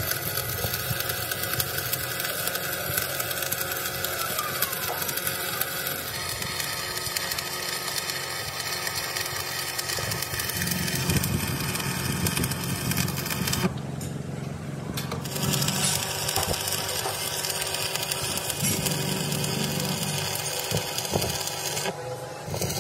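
Workshop noise: machinery running steadily, with many small clicks and knocks of tools at work. The high hiss drops out briefly twice.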